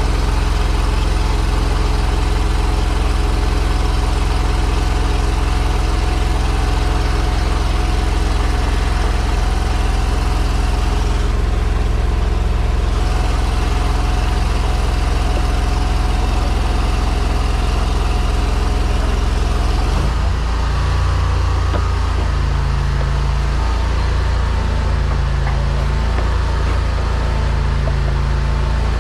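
High-pressure sewer jetter's engine and pump running steadily under load. About twenty seconds in, the drone changes and a slow pulsing sets in, roughly once every two seconds.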